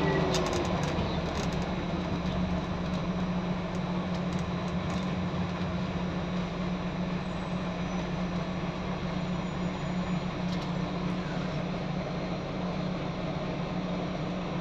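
Scania N94UD double-decker bus's diesel engine idling steadily, heard from the upper deck, with a few light ticks and rattles in the first two seconds.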